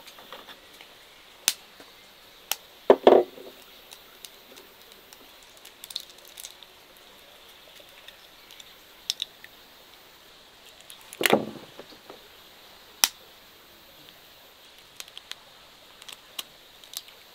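Kitchen utensils and cookware being handled during food preparation: scattered light clicks and taps, with two louder clattering knocks, one about three seconds in and another about eleven seconds in.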